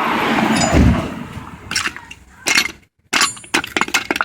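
Metal strut parts being handled and knocked: a scraping rush falling in pitch with a heavy thud about a second in, then a run of sharp clinks and knocks.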